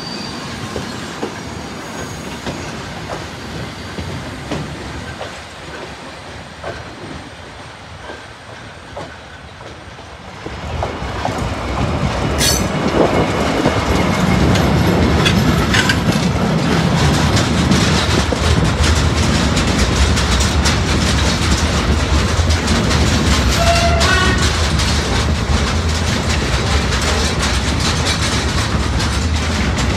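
Rail noise from a passing train. It fades over the first ten seconds, then about ten seconds in another train comes up and runs past loud and steady, with wheel-on-rail noise and a low hum to the end.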